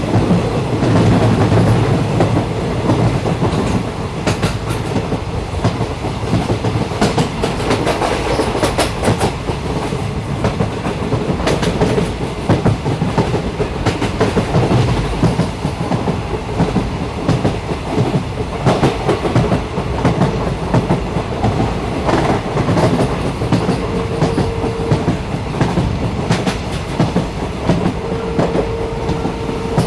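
Passenger train running on the rails, heard from on board: a steady rumble with irregular knocks and clicks from the wheels and carriage. A faint steady hum comes in briefly twice near the end.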